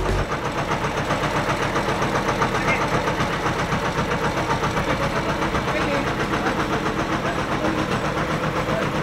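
Tatra 805's air-cooled V8 petrol engine idling steadily on the bare truck chassis, with an even pulsing beat.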